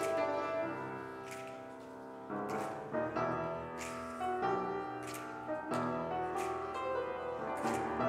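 Piano playing a slow piece, with chords struck every second or so and left to ring.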